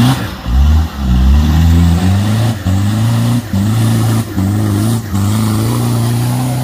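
Nissan Patrol 4x4's engine revving hard under load as it climbs a steep mud slope, the revs climbing and dropping again and again with brief breaks.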